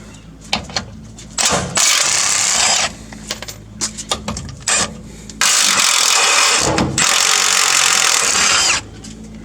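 Power tool undoing the gearbox crossmember bolts, running in two bursts: a short one of about a second, then a longer one of about three and a half seconds. Clicks and knocks of tools come between them.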